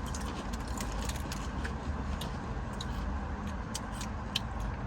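Spicy nacho potato chips being chewed: scattered small sharp crunches over a steady low rumble.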